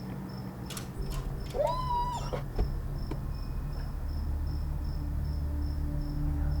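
Crickets chirping in a steady high pulse, with a short animal cry about two seconds in that rises and then holds. A low hum grows louder from about four seconds.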